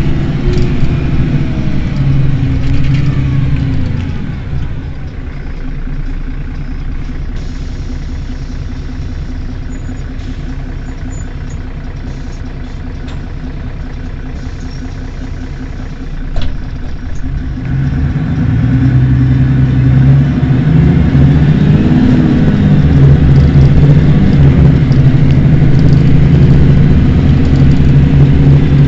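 Rear-mounted engine of a Mercedes-Benz Citaro city bus running while the bus stands still. It drops to a quieter idle about four seconds in, with a single knock near the middle. It then runs louder again from a little past halfway.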